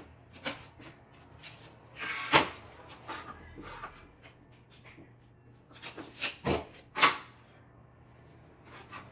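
Knocks and clatter of a wooden flooring plank being handled and set down on the floor while it is measured with a tape measure and marked with a speed square. There are a handful of sharp knocks: a short scrape ending in the loudest knock about two seconds in, and a quick cluster of knocks around six to seven seconds.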